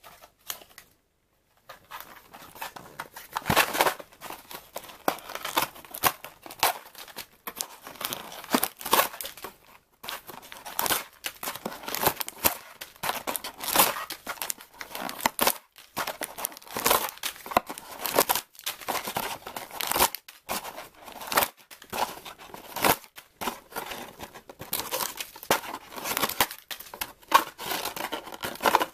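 Wrapped tea sachets crinkling and rustling as they are pulled out of a cardboard box and handled. The crackles are dense and irregular and start about two seconds in.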